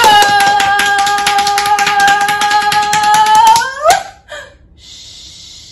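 Hands slapping fast and loudly on the thighs, about seven slaps a second, under a woman's long loud held vocal note that rises in pitch and stops about four seconds in. A soft "shh" follows near the end.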